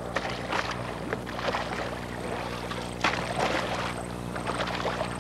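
Canoe paddle splashing in the water as the blade is braced on the surface in a support stroke: several short splashes, the sharpest about three seconds in, over a steady low hum.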